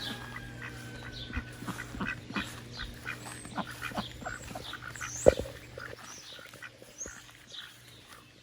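Ducks quacking in short calls, with small birds chirping high above them. There is a sharp knock about five seconds in.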